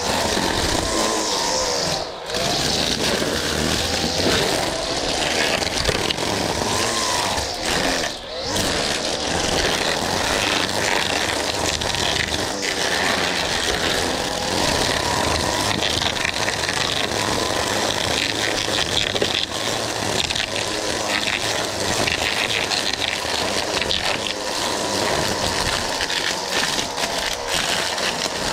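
Petrol lawn mower engine running steadily under load while cutting grass, with a dense hiss of blade and cut grass, dropping out briefly twice in the first ten seconds.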